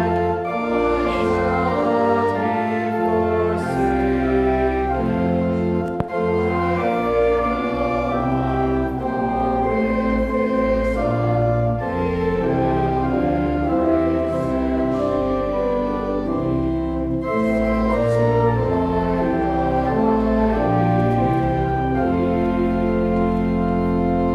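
Organ playing slow, sustained chords.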